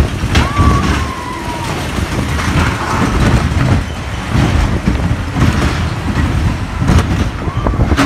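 Small steel roller coaster car rattling along its track at speed, with a dense rumble and sharp knocks: a very rough ride. A brief high squeal sounds about half a second in and another near the end.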